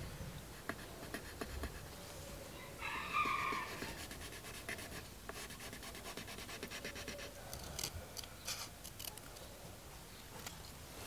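Pencil lead scratching on squared paper as a lure outline is drawn. About three seconds in comes a short call from a chicken, the loudest sound. Later there is a quick run of sharp snips from scissors cutting a paper template.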